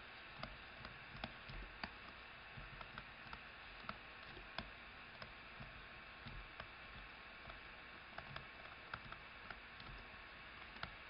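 Faint, irregular ticks and taps of a stylus on a tablet screen while handwriting, over a steady low hiss.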